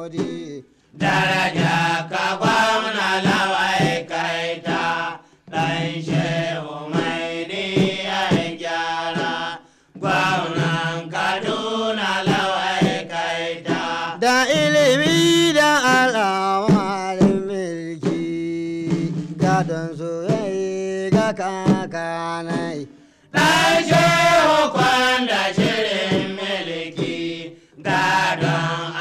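Hausa praise song: a singing voice in long, chant-like phrases over a steady low held drone, with short breaks between phrases.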